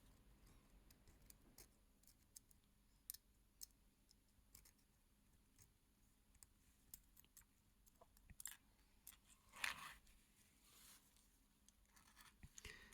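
Near silence, broken by a few faint, sharp clicks and a brief scrape of small metal tools working on a mechanical watch movement as its parts are pulled off.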